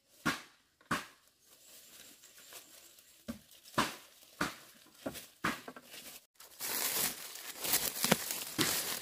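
Footsteps crunching on dry bamboo leaves, a step every half second to a second. After a short break about six seconds in, a denser rustling and crackling of dry leaf litter being handled around a bamboo shoot.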